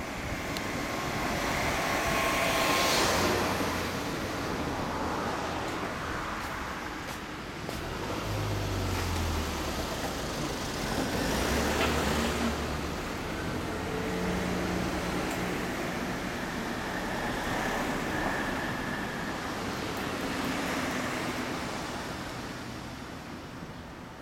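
Road traffic going by: several vehicles pass one after another, each swelling and fading, the loudest about three seconds in and again about twelve seconds in.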